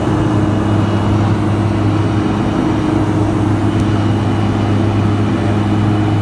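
Piper Cheyenne I twin turboprop running, a loud steady engine and propeller hum whose pitch holds level.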